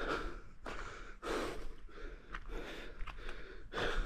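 A person breathing hard while hiking uphill: a run of heavy, noisy breaths, roughly one a second.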